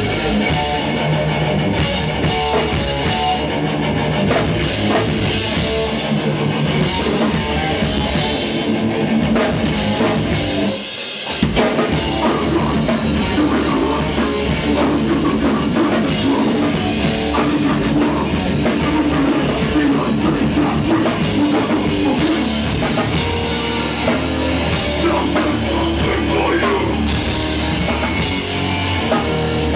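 A hardcore punk band playing live, with distorted electric guitar and a drum kit. The band drops out briefly about eleven seconds in, then comes back in.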